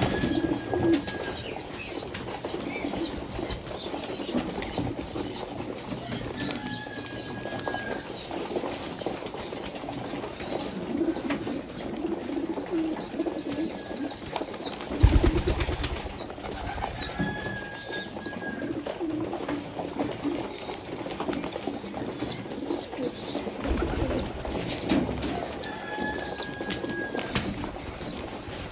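Pigeons cooing continuously, with many small birds chirping high above them and a short whistled note every few seconds. There is a low flutter or thump about halfway through and again near the end, likely wings flapping.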